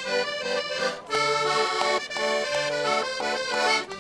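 Concertinas playing an instrumental interlude of a Portuguese folk tune: quick melody notes over an oom-pah bass and chord pulse, with a brief break about a second in.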